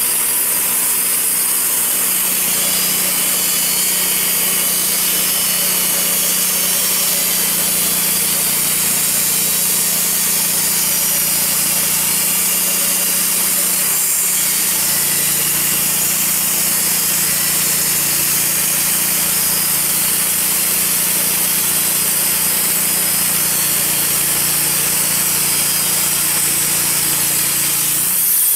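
Wood-Mizer LT40 portable band sawmill sawing lengthwise through a maple log: the mill's engine running steadily under load while the band blade cuts, with a constant high hiss from the blade and sawdust. The low hum settles in about two seconds in and dips briefly about halfway through.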